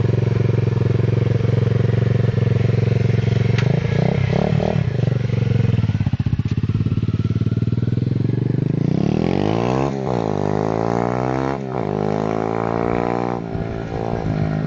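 A 125 cc pit bike's single-cylinder engine idles steadily and is blipped a few times about four seconds in. It then drops away as the bike rides off, and comes back to pass close by under throttle about ten to twelve seconds in, the pitch rising and falling as it goes past.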